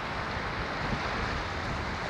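Ocean surf: a steady wash of breaking waves, with no single wave standing out.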